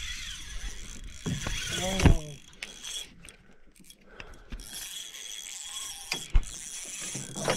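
Fishing reel working steadily as a freshly hooked bass pulls against the line, with a sharp knock about six seconds in.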